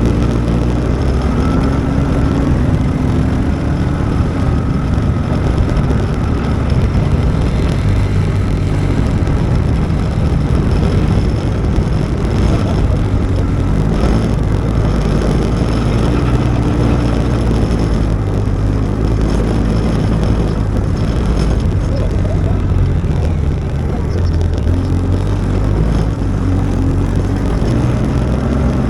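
Small motorbike engine running as it is ridden, its pitch rising and falling with the throttle over a steady rush of noise.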